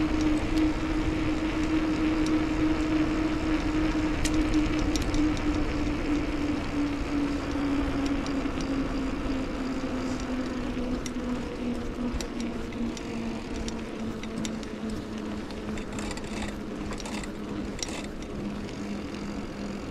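Bicycle riding along a trail: wind rush and low rumble on the microphone, with a steady hum that slowly falls in pitch as the ride eases off. A few sharp clicks come near the end.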